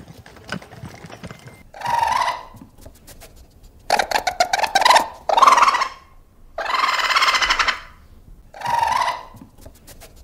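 An animal's calls: five harsh, raspy calls in a row, one of them with a fast rattling pulse and one held longer, about a second and a half.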